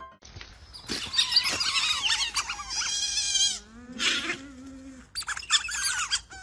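A group of otters chirping and squeaking, with many high, wavering calls overlapping and briefly dropping off twice.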